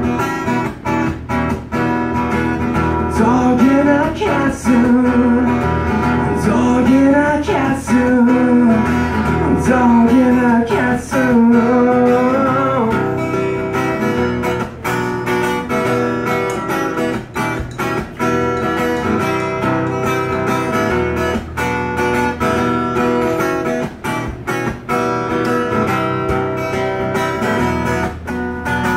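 Acoustic guitar strummed steadily in a song, with a man's singing voice over it from a few seconds in until about halfway through, after which the guitar goes on alone.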